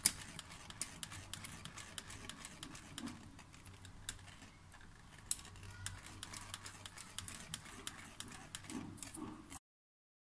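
Wire whisk of an electric stick mixer beating flour into cake batter in a glass bowl, its wires ticking and clattering against the glass in rapid, irregular clicks. The sound cuts off suddenly near the end.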